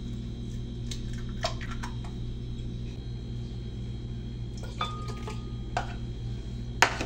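Eggs going into a glass blender jar: a few light taps and clinks, the loudest near the end, over a steady low hum.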